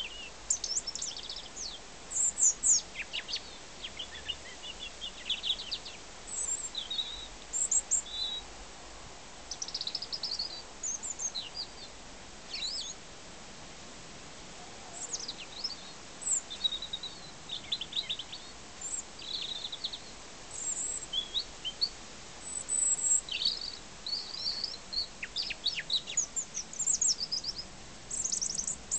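European robin singing: a run of short phrases of high, thin, quick notes and trills, each a second or two long, with brief pauses between them.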